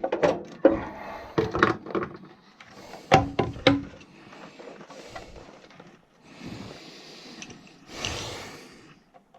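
Handling noises as furnace parts are worked on by hand: a run of sharp knocks and clatters, the loudest a few about three seconds in, then quieter scraping and a longer rustling swish near the end.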